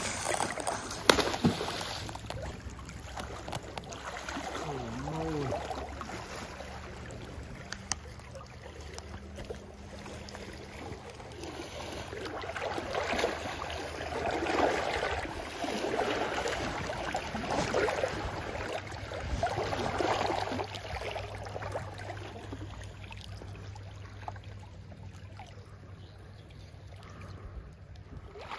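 Shallow river water splashing and sloshing around a hooked king (Chinook) salmon thrashing at the surface during the fight. The splashing comes in irregular bursts and is heaviest in the middle of the stretch.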